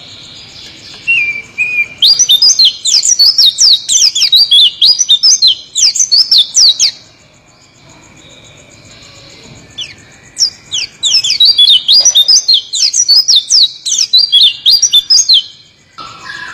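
White-eye (pleci) singing its long rolling song: two bouts of rapid, high, slurred notes, each lasting about five seconds, with a pause of a few seconds between them.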